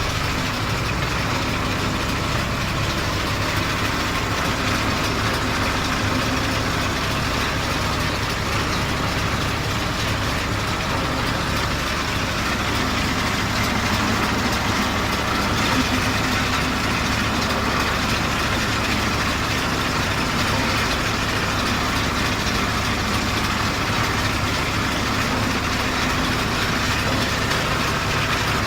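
Zetor Crystal 12145 tractor's diesel engine running steadily with a John Deere 575 round baler working behind it, a constant engine drone under a broad mechanical rattle.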